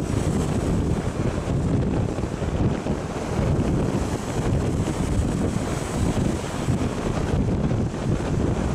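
Storm wind buffeting the microphone in a continuous, gusty low rush, over a rough sea with waves washing against a rock jetty.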